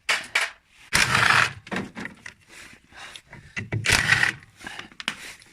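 Short runs of a power driver, about half a second each near one second in and again near four seconds in, amid clicks, knocks and scrapes of metal parts as a front-loading washing machine's counterweight is unbolted.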